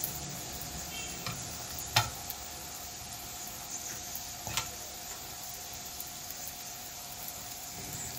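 Filled roqaq pastry frying in ghee in a non-stick pan: a steady sizzle with a few sharp pops, the loudest about two seconds in.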